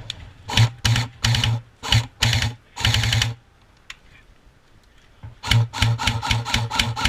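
Electric airsoft rifle (AEG) firing in short bursts, its gearbox rattling rapidly with each trigger pull. There are about six bursts in the first three seconds, a pause of about two seconds, then quick repeated bursts again from about five seconds in.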